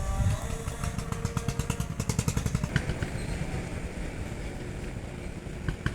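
A motor vehicle engine running, with a rapid even pulse that is strongest in the first half.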